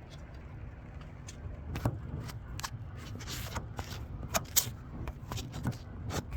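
Irregular light clicks and plastic rattles of zip ties being handled and threaded, a few a second, over a steady low rumble.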